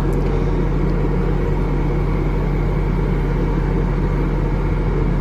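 Passenger train heard from inside the carriage, running with a steady rumble and low hum just after pulling out of a station.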